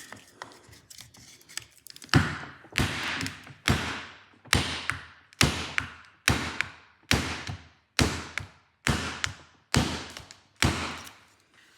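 Hammer blows on a wooden block, driving a slotted steel ABS reluctor ring onto a car's drive shaft: about eleven sharp, steady strikes roughly a second apart, each dying away briefly, after a couple of quieter seconds.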